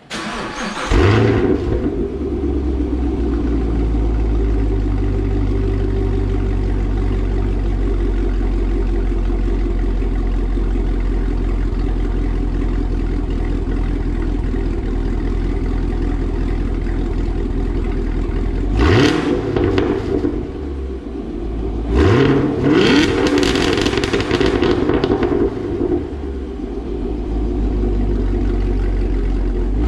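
Chevrolet Camaro SS's 6.2-litre LT1 V8, breathing through freshly installed aftermarket headers, starting up: it catches with a loud flare about a second in and settles into a steady idle. About two-thirds of the way through it is revved briefly, then revved again a few seconds later.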